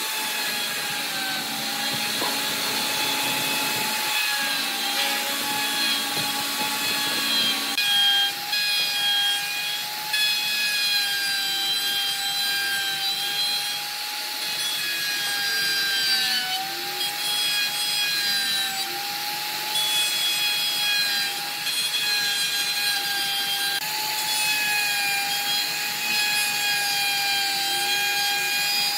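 Dongcheng electric plunge router cutting into a solid wood block: a steady high motor whine over the rasp of the bit in the wood, its pitch sagging slightly now and then as the bit takes load.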